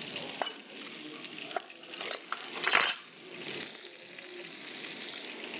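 Mutton mince kababs and potatoes sizzling on a hot grill pan, with a few light knocks of a knife and utensils and a louder, brief burst of noise about halfway through.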